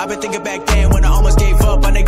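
Hip hop music track; a heavy bass and beat drop in about two-thirds of a second in, and the track gets louder from there.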